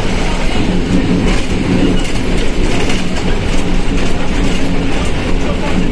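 Volkswagen 17.230 OD bus under way, heard on board: steady engine and drivetrain noise with the growl of its transmission, and scattered clicks and rattles from the body.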